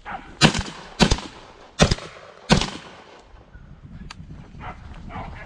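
Four gunshots in quick succession, roughly one every two-thirds of a second, each a sharp loud crack with a brief tail.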